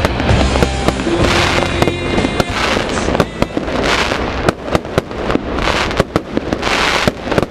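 Many irregular sharp cracks and pops with repeated bursts of hiss, over faint music.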